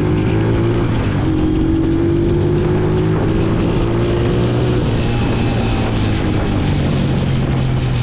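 Small motorcycle engine running on the move, its pitch climbing slowly over the first five seconds or so as it gathers speed.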